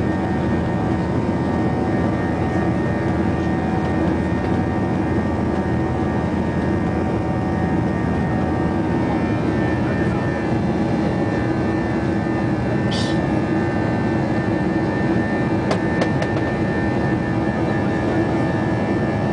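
Airliner's jet engines heard from inside the passenger cabin during the climb after takeoff: a loud, steady rushing drone with constant humming tones.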